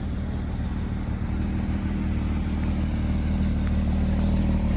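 Car engine running with a steady low drone that slowly grows louder.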